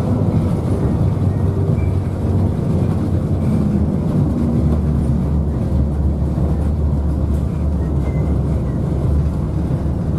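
Inside a moving city bus: steady engine drone and low road rumble in the cabin.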